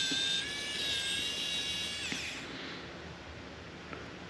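Small cordless electric screwdriver with a hex bit, its motor running with a high whine that rises slightly in pitch, then released and spinning down about two seconds in.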